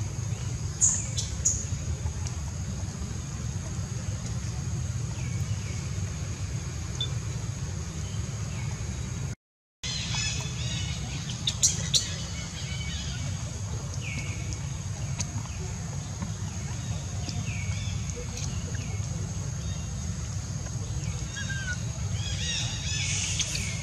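Outdoor ambience: a steady high-pitched insect drone over a low rumble, with scattered short chirps and a few sharp clicks. The sound drops out for a moment near the middle.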